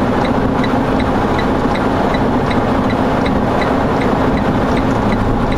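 Semi truck's diesel engine idling steadily, heard from inside the cab, with a light regular ticking about four times a second over the hum.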